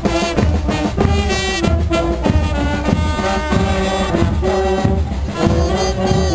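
Guggenmusik carnival band playing loudly: saxophones, sousaphone and other brass over a steady drum beat.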